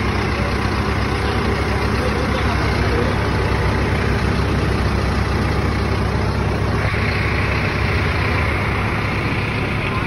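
Backhoe loader's diesel engine idling steadily, with a higher hiss coming in about seven seconds in.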